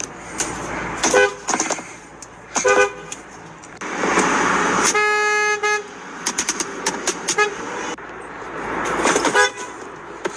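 Car horns honking: a string of short toots, with one steady held blast of about a second midway.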